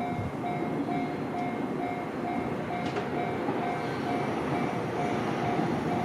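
Japanese railway level crossing's electronic warning bell ringing in a steady repeating ding, about two strokes a second, signalling an approaching train, over the rumble of a train drawing near that grows louder toward the end.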